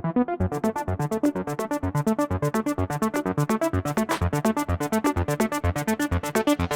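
Electronic dance music with a fast, steady beat and synthesizer notes; high ticking percussion comes in about half a second in.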